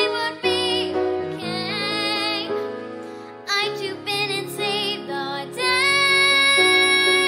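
A boy singing a musical-theatre song with piano accompaniment, the words lost in the sung line, ending on a long held note near the end.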